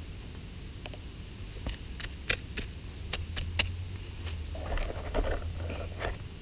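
Wooden digging stick stabbing and scraping into stony soil around a wild parsnip tuber, with a scatter of sharp clicks and knocks, then a burst of crumbling, scratching earth about five seconds in as loosened soil is worked aside.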